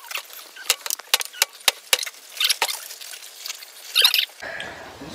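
Cup ramen being eaten: noodle slurps and chopsticks clicking against the cups, sped up to double speed so they come out as quick, high-pitched clicks and squeaky bursts. A little over four seconds in, the sped-up sound gives way to a low room hum.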